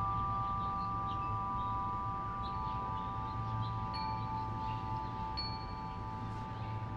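Wind chime ringing on in several steady, overlapping tones with no new strike, slowly fading. Faint short bird chirps sound over it, with two brief high whistles near the middle.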